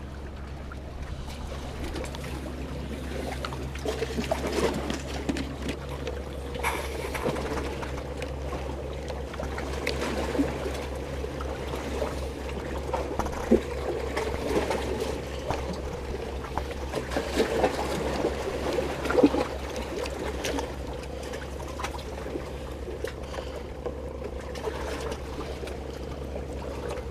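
Water lapping and trickling, with many small irregular splashes over a steady low hum.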